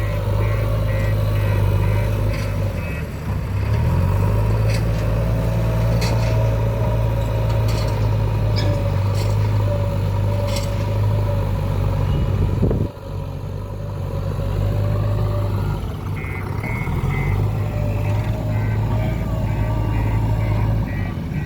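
A JCB 3DX backhoe loader's diesel engine running steadily under work. Its note drops sharply about halfway through, then picks up again. A rapid beeping alarm sounds at the start and again in the last few seconds, and a few sharp knocks are heard early on.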